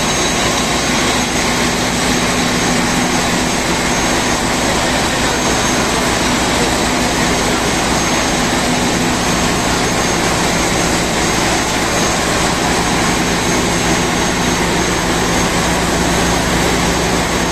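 Ship's engine-room machinery, diesel engines and pumps, running steadily: a loud, even mechanical din with a few steady hums and a faint high whine throughout.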